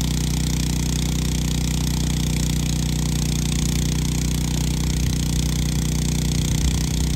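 Steady low hum of running machinery, unchanging in pitch, with a few brief low rumbles near the end.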